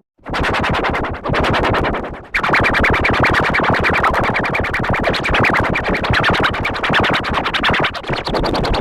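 Cartoon title music, pitch-shifted and chopped by a fast volume-gating effect into rapid, even pulses. There is a brief gap right at the start and a dip a little after two seconds, before the music comes back fuller and brighter.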